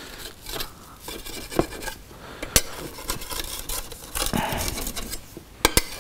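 Slotted metal spatula scraping along the inner sides of a baking dish to loosen a set slab of marshmallow, with uneven scrapes and a few sharp clicks of metal against the dish.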